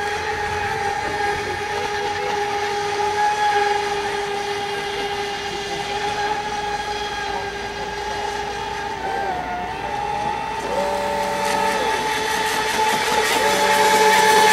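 Radio-controlled speedboats running flat out on a pond, their motors giving a steady high-pitched whine. A second boat's lower tone joins briefly about two-thirds of the way through and again near the end.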